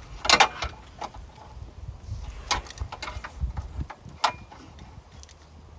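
Several sharp clanks and rattles, the loudest about half a second in and others about two and a half and four seconds in, over a low rumble.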